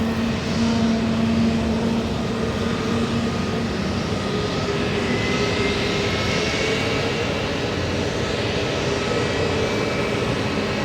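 Airbus airliner jet engines running steadily: a continuous rush with a few steady whining tones, and a faint higher whine that rises slightly from about halfway through.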